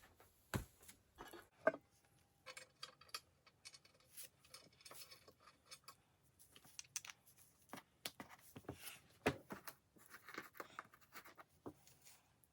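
Close-up handling noise of hand work on the bell's parts: irregular clicks, light knocks and scraping rubs, with a few sharper knocks scattered through.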